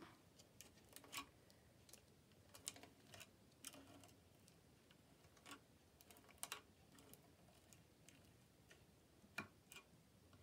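Near silence with faint, irregular light clicks and taps, a dozen or so scattered through, with no steady rhythm.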